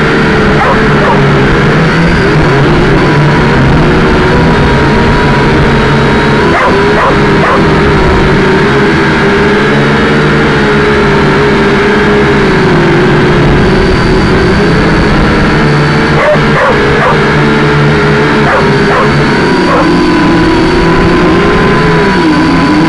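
A Syma X5C quadcopter's four small brushed motors and propellers whining loud and close, heard from the drone's onboard camera. Several steady tones waver up and down in pitch as the throttle changes.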